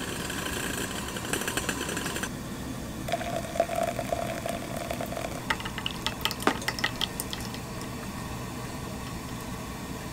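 Coffee being prepared by hand. A rattling, grinding noise runs for about two seconds and stops abruptly, then there is a short steady tone, then a quick run of light clinks with one sharper knock.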